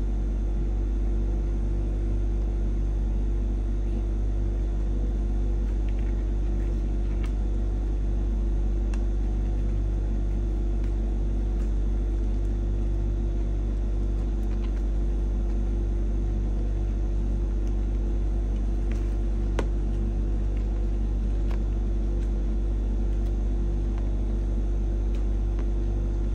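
Steady low hum, unchanging throughout, with a few faint clicks from handling.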